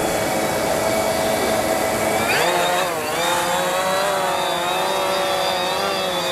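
Multi-rotor fishing drone's propellers whining in flight. Several close tones that swing sharply up and back down about two seconds in as the throttle changes, then settle into a steady whine.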